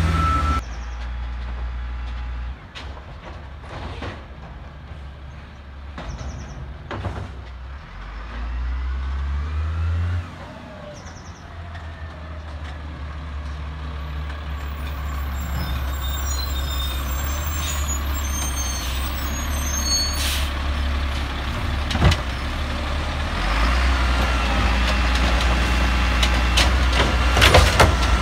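Peterbilt garbage truck with an Amrep automated side-loader, its diesel engine running and growing louder as it approaches, with a few short air-brake hisses. Near the end the engine revs up as the hydraulic arm lifts a cart, with a couple of clanks.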